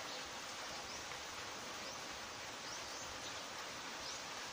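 Steady hiss of rain falling, with short high bird chirps about once a second.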